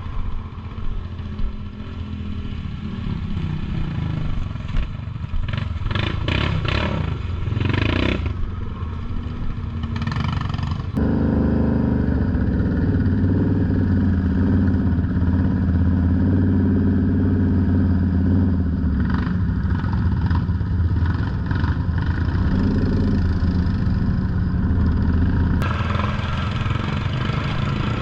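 ATV engine running while riding a rough off-road trail: a steady engine drone with some rattling and clatter in the first half. It gets abruptly louder and fuller about eleven seconds in.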